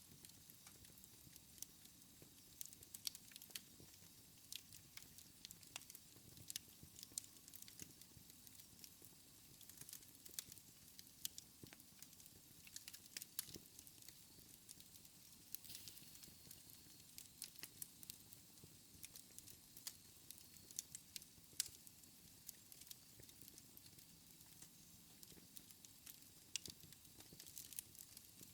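Wood fire in a fireplace crackling faintly: an irregular scatter of small sharp pops and ticks, with an occasional louder snap, the loudest about two-thirds of the way through.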